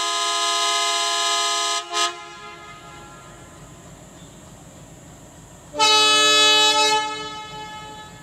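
WDM3D diesel locomotive's air horn: a long blast that ends about two seconds in, a short toot right after it, then a second blast of about a second starting near six seconds that trails off.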